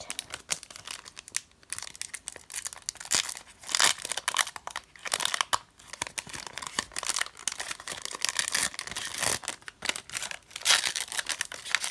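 Foil wrapper of a Pokémon Sun and Moon booster pack crinkling and tearing as it is worked open by hand: a dense, irregular run of sharp crackles.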